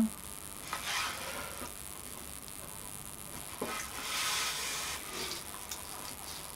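Soft scratching of a pencil drawn along a straightedge on a wooden board, in short strokes with a light tap about three and a half seconds in.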